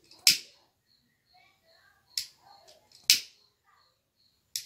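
A hand lighter struck four times, sharp clicks spaced unevenly. The loudest strikes, near the start and about three seconds in, each have a short hiss. It is lit to heat-seal the cut ends of satin ribbon.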